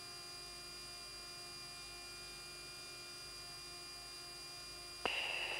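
Steady electrical hum with several steady tones on the Tornado GR4's cockpit intercom recording. About five seconds in, a click and a hiss cut back in.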